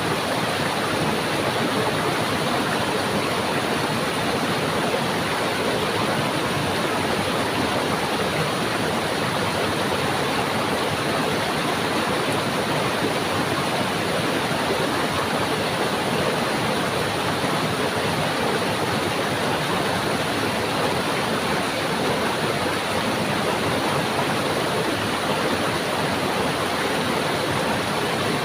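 Stream water rushing steadily, an even, unbroken noise.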